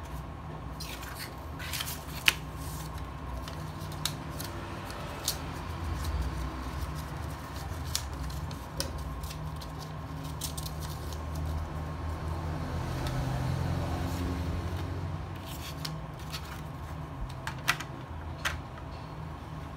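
Light clicks and taps of hard plastic as pens are handled in a Rotring Isograph set's plastic tray and its clear plastic lid is fitted back on, over a steady low hum.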